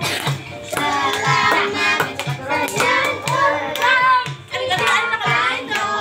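A group of children and women singing a birthday song together, clapping in time to a steady beat about twice a second.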